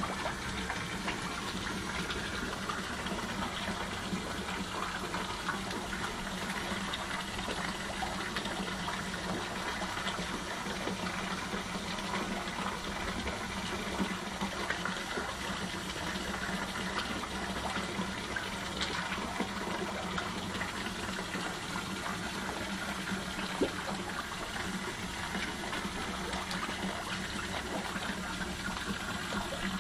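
Steady rush of running water into a fish pond, with a low steady hum underneath.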